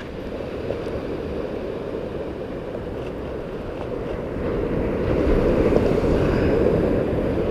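Ocean surf washing onto the beach, with wind rumbling on the microphone; the wash swells louder about halfway through.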